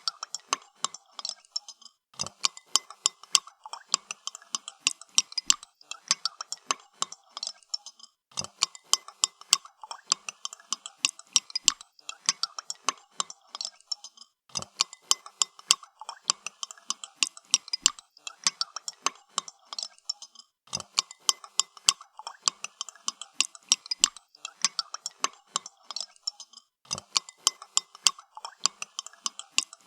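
A spoon stirring coffee in a cup, clinking rapidly against the sides in runs of a few seconds, each broken off by a short pause.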